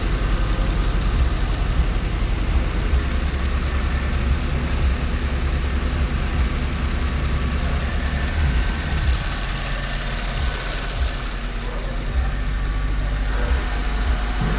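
Mercedes-Benz SLK 350's V6 engine idling roughly with an uneven low pulse, the shake of a cylinder 1 misfire.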